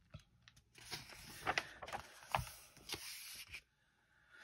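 A page of a paperback coloring book being turned: a soft paper rustle with a few sharp crinkles, starting about a second in and lasting nearly three seconds.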